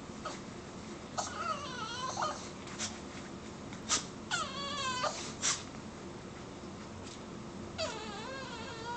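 Small dog crying and whining in a wire crate, in long, wavering, high cries that sound like a human baby: one about a second in, another near the middle, and a third starting near the end. A few sharp clicks fall between the cries.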